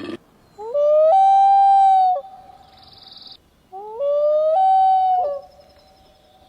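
An animal calling twice: each call is a clear, pitched cry that slides up and then holds steady for about a second before breaking off.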